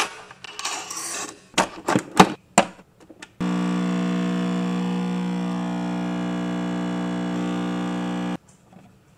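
Capsule espresso machine: a few sharp clicks and clacks as the capsule is loaded and the head closed. Then the pump hums steadily for about five seconds while the espresso brews, starting and cutting off abruptly.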